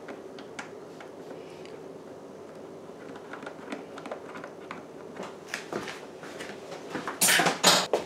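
Light clicks and scrapes of a screwdriver working a screw in the plastic trim at the bottom of a refrigerator's water dispenser, with a louder rough scraping patch near the end.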